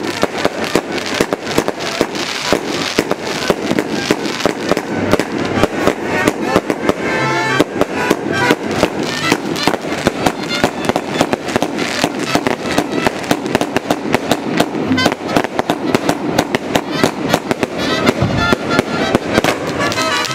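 Fireworks castle (castillo) burning: a continuous, rapid crackle and pop of firecrackers and spark fountains, with no break.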